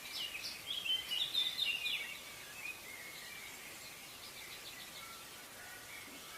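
Birds chirping and singing: a busy run of quick chirps and trills over the first two seconds or so, then sparser calls over a steady background hiss.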